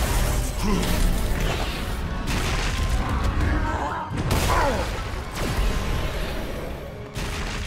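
Cartoon fight sound effects: a few heavy crashes and booms over a low rumble, with an action music score underneath.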